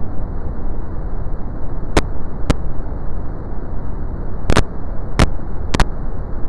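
Steady brown noise, a deep, even rushing hiss weighted toward the low end. Several sharp clicks cut through it from about two seconds in.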